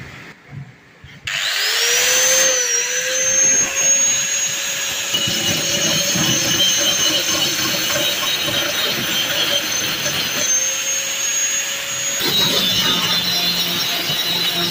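Angle grinder with a flap disc starting up about a second in, its motor whine rising to speed, then grinding down a weld on a square hollow steel tube: a steady high whine over the rasp of the disc on the steel. Near the end the whine drops lower while the grinding goes on.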